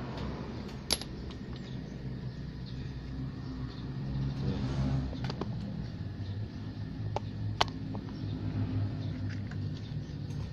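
A small engine running steadily with a low hum, swelling slightly about halfway through, with a few sharp metallic clicks over it.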